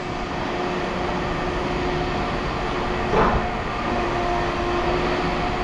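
Steady mechanical running noise with a faint constant hum, with one short brief sound about three seconds in.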